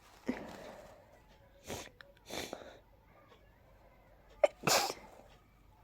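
A person sneezing from a pollen allergy: one loud wet sneeze about four and a half seconds in, a short sharp intake followed at once by the burst. Quieter breathy sounds come earlier.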